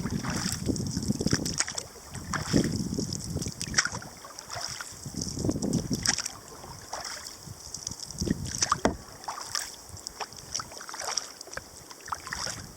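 Kayak paddle blades dipping into the water, with scattered splashes and drips between strokes, over intermittent low wind rumble on the microphone.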